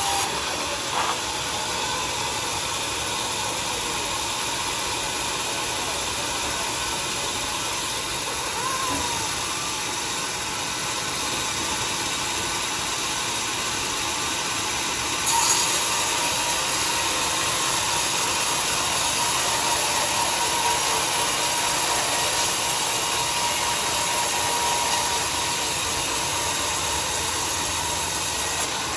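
Sawmill saw and its machinery running steadily: an even mechanical noise with a faint steady tone, a short sharp click about a second in and a sharp knock about fifteen seconds in.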